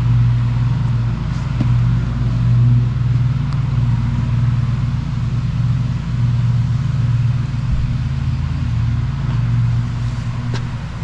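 Steady low motor hum, like an engine running, with a few faint clicks.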